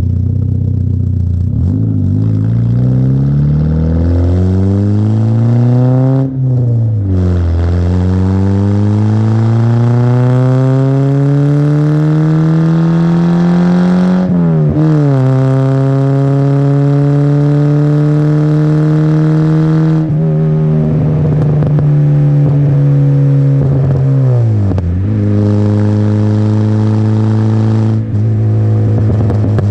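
Peugeot 106 1.1 four-cylinder petrol engine through a custom exhaust, pulling up through the gears: the note climbs, drops at a gear change about six seconds in, climbs again and drops at another change around fifteen seconds, then holds steady. From about twenty to twenty-five seconds the note falls back with a stretch of irregular crackling pops from the exhaust, then steadies again.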